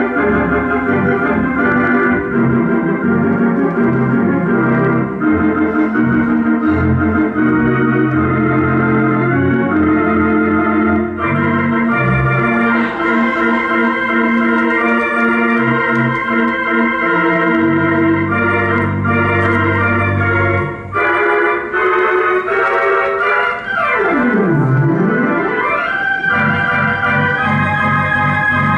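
Theatre organ playing silent-film accompaniment: held chords under a moving melody, with a sliding tone that swoops down and back up about three-quarters of the way through.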